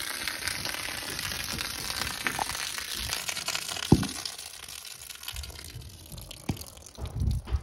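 A stream of water pouring from an open pipe end at the roof eave and splashing into brush far below, as a steady hiss that fades after about six seconds. The newly plumbed line has been filled and pushed its air out, so water is running through. There is a sharp knock about four seconds in and a few low thumps near the end.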